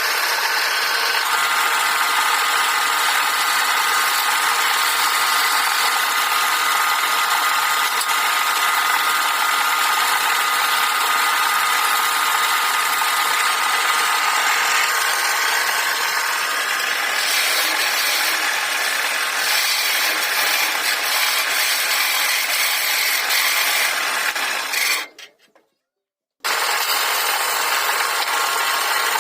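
Wood lathe running with a steady motor whine while a tool cuts and scrapes the spinning wood. The sound cuts out abruptly for about a second and a half near the end, then resumes.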